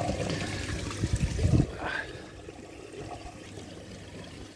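Pond overflow water trickling steadily into a small sump tub. A brief low rumble about a second in is louder than the water.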